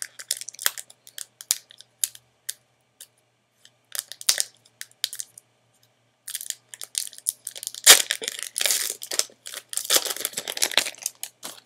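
Foil booster pack wrapper of Magic: The Gathering cards being torn open and crinkled by hand: scattered crackles at first, then dense crinkling and tearing from about six seconds in, with one loud snap near eight seconds.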